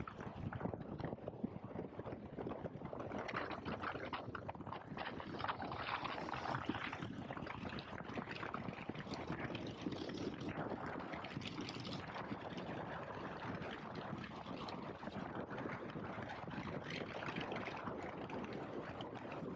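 KTM 1290 Super Adventure S, a large V-twin adventure motorcycle, running on the road, with its engine and wind rushing over the microphone making a steady, rough noise.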